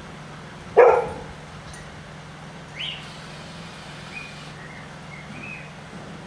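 A Great Pyrenees barks once, loudly, about a second in. A few faint high chirps follow over a steady low background hum.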